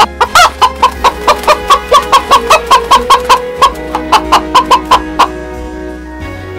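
Hen clucking in a fast, even run of short clucks, about five a second, stopping a little after five seconds in, over soft background music.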